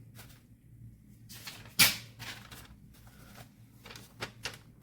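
Victorinox santoku knife blade making several short cutting strokes in a sharpness test. The loudest, sharpest stroke comes about two seconds in and two lighter ones come near the end.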